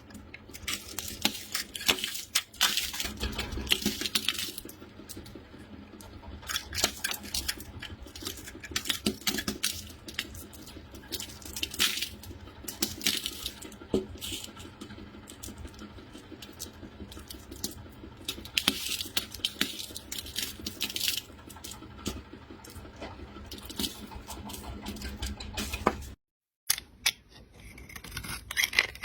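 Clusters of small, crisp clicks and crackles, like hard little pieces being handled or broken, with a brief silent break near the end.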